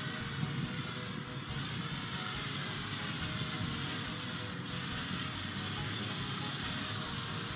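White toy quadcopter drone's electric motors and propellers whining steadily, the pitch dipping and rising again a few times as the throttle changes.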